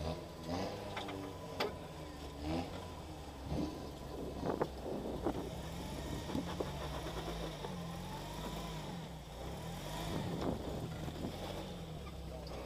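Suzuki Sidekick rock crawler's four-cylinder engine running at low revs as it crawls over rock, its pitch rising and falling with the throttle. Several sharp knocks in the first half.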